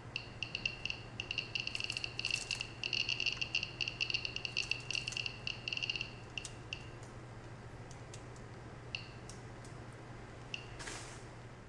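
Irregular clicking beeps from a CAJOE DIY Geiger counter kit's buzzer, one beep for each detected count. The clicks come fast for about the first six seconds, a raised count from a foil-wrapped sample held near the tube, then thin out to a few scattered clicks.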